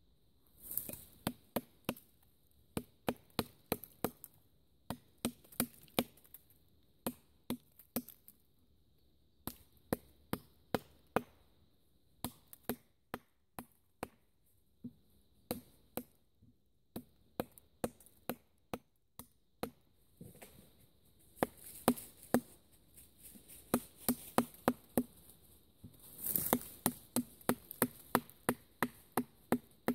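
Fixed-blade bushcraft knife chopping into a thin upright wooden branch: sharp wooden knocks, about two to three a second, in short runs with brief pauses. From about two-thirds of the way through the strokes come faster and harder.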